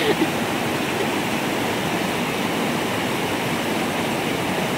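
Steady rush of creek water pouring down a small cascade over boulders.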